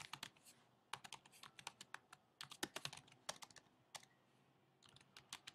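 Faint typing on a computer keyboard: quick key clicks in uneven runs, with a pause of about a second after about four seconds.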